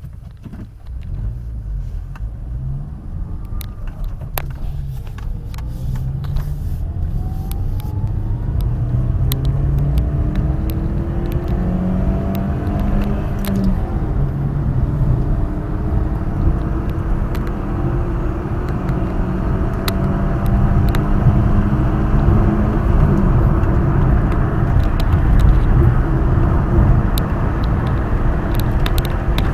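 Volkswagen Gol G4 with the 1.0-litre four-cylinder engine driven at highway speed. Its rumble and road and wind noise grow steadily louder, and several tones climb in pitch over the first half before holding steady. This is the strange noise the owner says comes at about 130 km/h, cause unknown to him.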